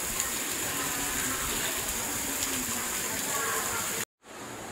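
Heavy rain falling as a steady, even hiss, with faint voices underneath. It cuts off abruptly near the end, giving way to a quieter indoor background.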